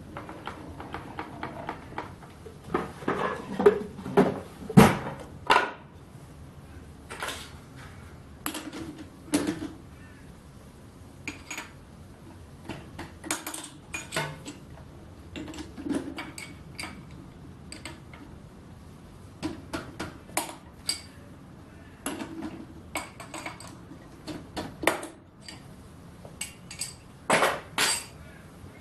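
Irregular metal clinks and knocks of steel lathe parts and tools being handled while a 4-jaw chuck and saw blade are set up on a small metal lathe. The loudest knocks come about four to five seconds in.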